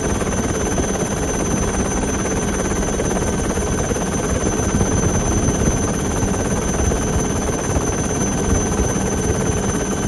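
Helicopter engine and rotors running steadily, heard from on board as a constant loud drone with a thin high whine over it.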